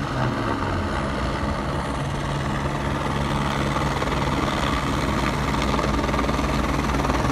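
Police helicopter rotor and turbine drone as it comes in low overhead, heard from inside a parked vehicle, growing slightly louder towards the end. A steady engine hum runs underneath.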